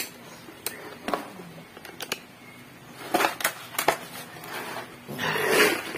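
Scattered sharp clicks and knocks of small objects being handled, then a short, louder burst of rustling or scraping about five seconds in.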